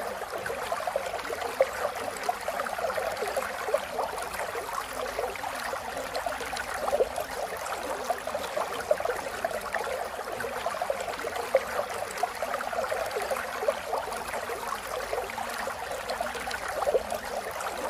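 Steady rain falling, with many small drop ticks and scattered louder drops.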